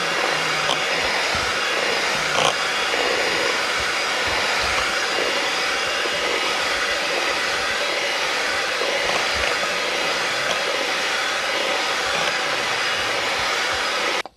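Electric hand mixer running at a steady speed, its beaters working butter, eggs and the dry flour-cocoa mix into muffin batter. Two light clicks come about one and two and a half seconds in, and the motor cuts off suddenly near the end.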